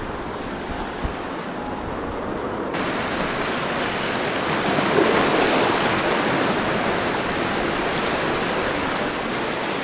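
Sea surf washing over shoreline rocks: a steady rush of waves, with a light knock about a second in, that turns louder and brighter about three seconds in.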